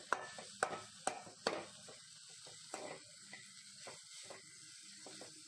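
Metal spoon scraping and knocking against a metal pan as diced potatoes are stirred while frying, over a faint steady sizzle. The scrapes come in quick strokes through the first second and a half, then fewer and softer.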